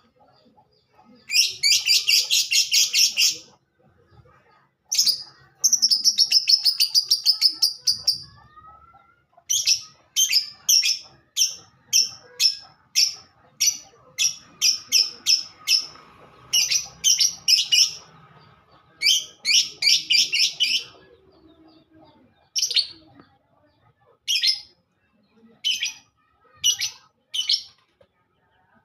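A songbird chattering in rapid, buzzy high-pitched trills and runs of sharp chirps, in bursts of one to three seconds with short pauses between.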